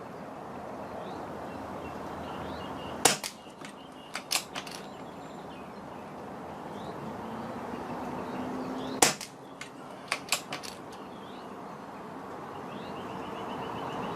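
Two shots from a .177 PCP air rifle, about six seconds apart. Each is a sharp crack, followed a second or so later by a few quieter clicks of the action being cycled for the next pellet.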